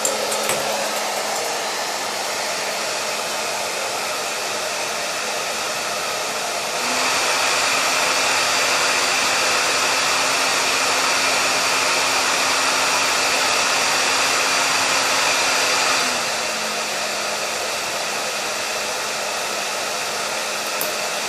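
Hair dryer blowing steadily, with a steady motor hum under the rush of air. About a third of the way in it steps up to a louder, slightly higher setting, and it drops back to the lower setting about three quarters of the way through.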